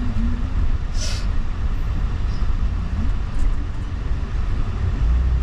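Steady low rumble of a motor vehicle on the move, with a short hiss about a second in.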